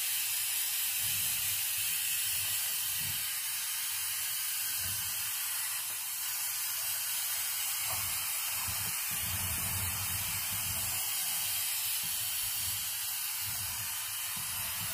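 Aerosol can of food velvet spray (spray velours) hissing in one steady, unbroken spray, coating a frozen mousse cake with a velvet finish.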